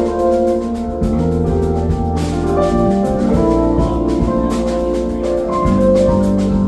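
Instrumental band music with keyboard chords held over a drum kit, with no singing.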